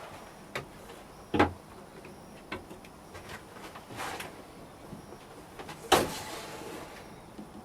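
A few sharp knocks and clacks of hard objects being handled. The loudest come about a second and a half in and at six seconds, and the last is followed by about a second of rustling hiss.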